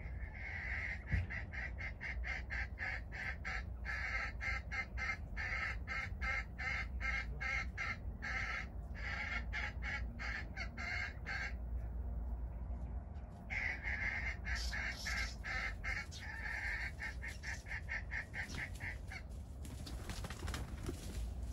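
A rapid, regular run of short calls, about four a second, in two long runs with a pause of about two seconds between them, over a steady low rumble. A short rustling hiss comes near the end.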